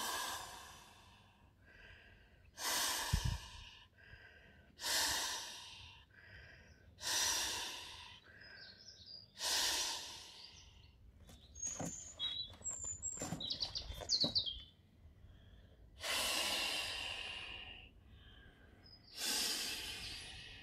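Breaths blown by mouth into the valve of a vinyl inflatable swim ring: seven long, forceful exhales, each about a second, every two to three seconds, with quieter breaths in between. Partway through the blowing pauses for a run of short clicks. Birds chirp in the background.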